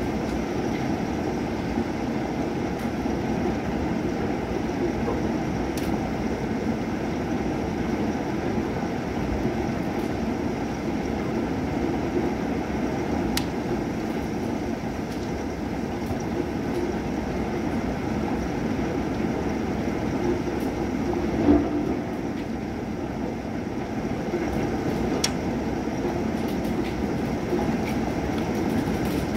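Steady rushing noise of heavy thunderstorm rain, low and even, with a few sharp ticks and one brief louder bump about two-thirds of the way through.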